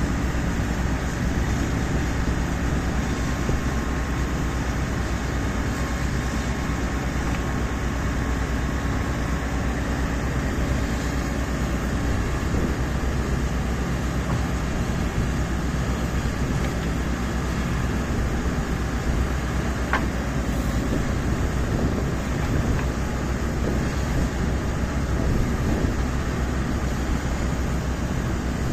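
JK 590 crawler drill rig boring with a 5-inch down-the-hole air hammer and 152 mm bit: the rig's engine runs steadily under a dense, rapid rattle from the drill string, with one short click about two-thirds of the way through.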